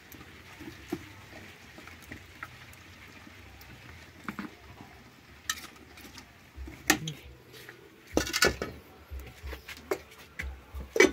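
A pot and dishes knocking and clinking as they are handled. It is quiet at first; the scattered knocks begin a few seconds in and come thicker near the end, over a low rumble.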